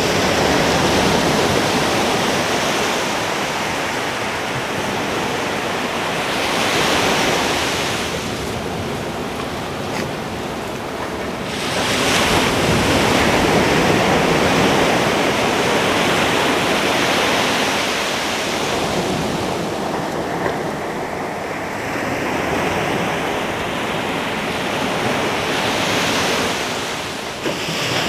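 Ocean surf breaking on a beach, waves crashing and washing up in repeated surges every several seconds, with some wind on the microphone.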